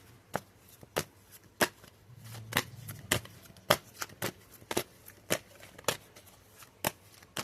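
A deck of tarot cards being shuffled by hand: a steady run of sharp card slaps, a little under two a second.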